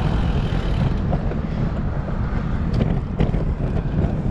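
Wind buffeting the microphone of a moving bicycle, a steady low rumble, with a few light clicks a little under three seconds in.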